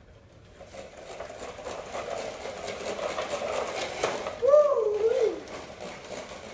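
Metal toy dump truck's wheels rolling and rattling over a hard floor, getting louder as it is pushed closer. A child gives a short voiced cry about four and a half seconds in.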